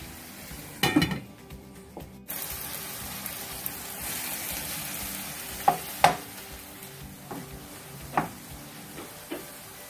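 Ground beef with chopped peppers, tomato and onion sizzling in a stainless steel frying pan over high heat as a wooden spoon stirs it, with a few sharp knocks. The sizzle gets louder about two seconds in.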